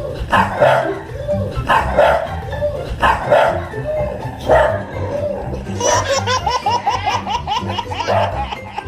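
A dog barking four times, about a second and a half apart, over background music.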